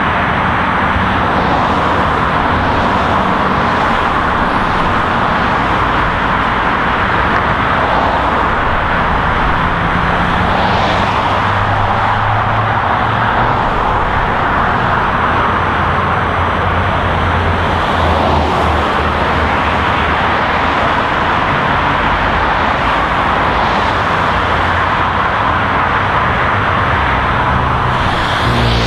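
Steady stream of highway traffic: a continuous roar of tyres and engines, with single vehicles swelling past every few seconds.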